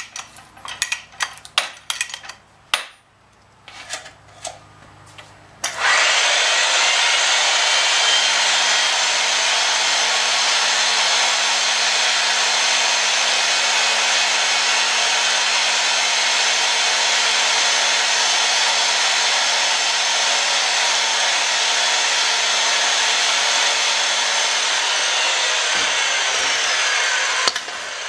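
Oster Power-Matic pipe threading machine's motor starts about six seconds in and runs steadily, threading a length of 1/2-inch black steel gas pipe, then stops near the end. Before it starts there is a series of light metal clicks and knocks.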